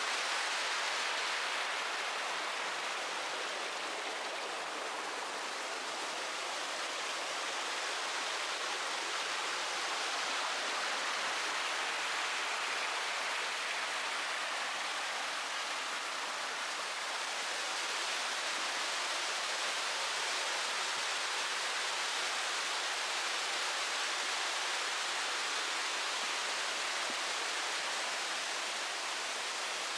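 Mountain stream cascading: a steady, unbroken rush of water.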